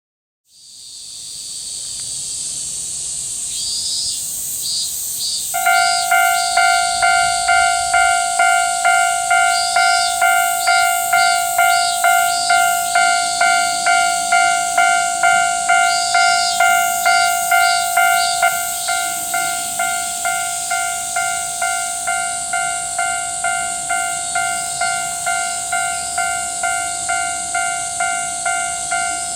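Railroad crossing warning bell starts about five seconds in and rings at about two strokes a second, over a steady high hiss. It drops to a lower volume a little past halfway.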